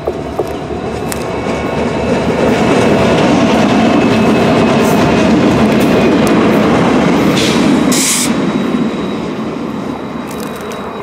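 An EMD SD60 diesel locomotive, with a 16-cylinder 710 engine, passing close by with a Jordan spreader in tow. The engine rumble grows louder as it draws level, peaks mid-pass, then eases as it runs away, with wheels clicking over the rail joints. There is a brief high hiss about eight seconds in.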